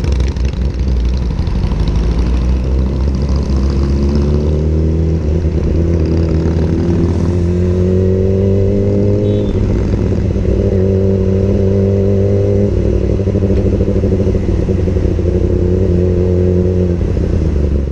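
Motorcycle engine accelerating on the move, its pitch climbing for several seconds, then stepping down at a gear shift about halfway through and again a few seconds later, over a heavy low rumble of wind on a helmet-mounted microphone.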